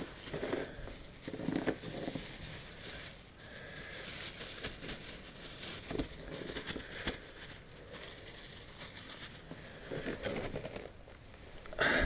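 Plastic bag crinkling and rustling in a hand, with irregular crackles, as dead feeder chicks are pulled out of it and set down.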